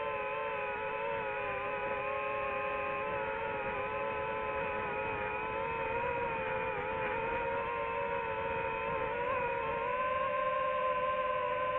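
FPV drone's motors and propellers whining steadily in flight, the pitch wavering slightly with throttle and rising a little near the end.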